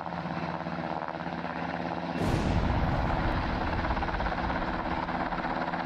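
Helicopter rotor sound effect, a steady chopping with an engine hum; about two seconds in a loud bomb explosion bursts out and rumbles on under the helicopter.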